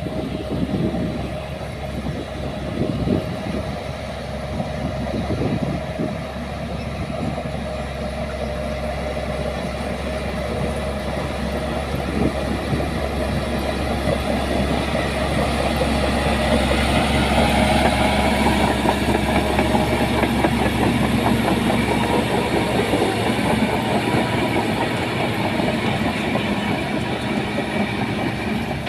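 Crawler bulldozer working: its diesel engine runs steadily under the clank and clatter of its steel tracks, growing louder past the middle as the machine works harder or comes closer.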